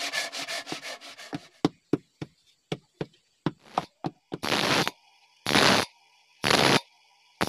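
Handsaw cutting a wooden log in quick strokes, thinning to a few scattered strokes. Then a bench grinder sharpens the teeth of a sawmill band-saw blade in three short grinding passes about a second apart, with the grinder's faint steady whine between them.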